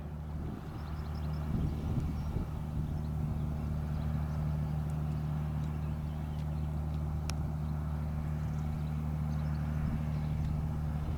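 Diesel engine of a small fishing boat passing close by, running steadily at a low, even pitch.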